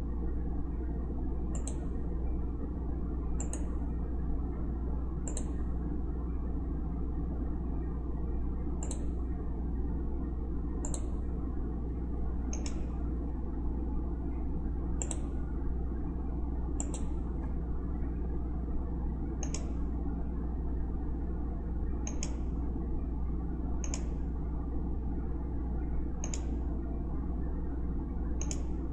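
Computer mouse clicking at irregular intervals of about two seconds, over a steady low hum from the recording setup.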